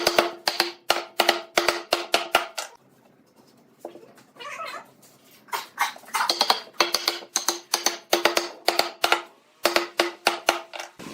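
Runs of quick, sharp taps, about four a second, each with a short ring at the same pitch, broken by short pauses.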